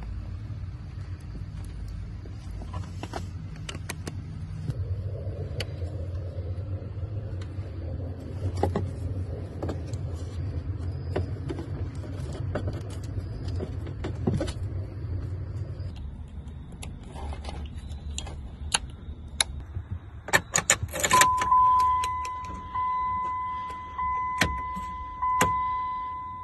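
Scattered clicks and rattles of wiring being handled and crimped over a low hum. Near the end, toggle switches on a dash-mounted switch panel click on and a steady electronic beep sounds.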